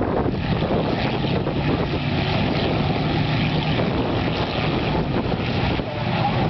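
Race car engines running around the oval in a hit-to-pass race, heard as a steady, continuous drone.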